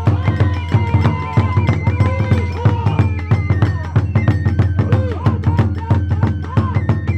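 Kagura hayashi music: taiko drums and hand cymbals beating a fast, driving rhythm, with a flute melody that bends up and down above it.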